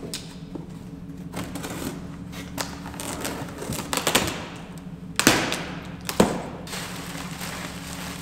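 Cardboard box being cut open and unpacked by hand: clicks and scrapes of tape and flaps, then rustling of plastic wrapping, with the two loudest sharp rustles about five and six seconds in. A steady low hum runs underneath.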